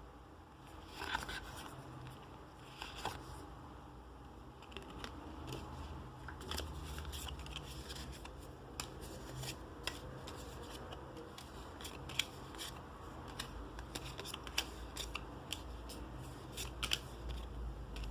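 Trading cards and their packaging being handled at close range: irregular light clicks, snips and scrapes, over a low steady hum.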